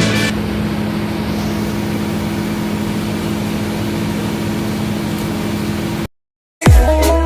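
Wheel loader's diesel engine running steadily at idle, a low even hum. It cuts off suddenly about six seconds in.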